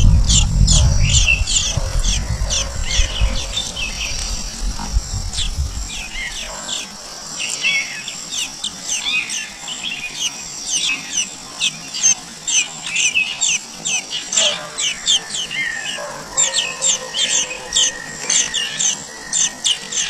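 Nestlings begging in the nest: rapid, high-pitched chirps, many each second, busiest near the end. A low rumble under the first few seconds fades out about six seconds in.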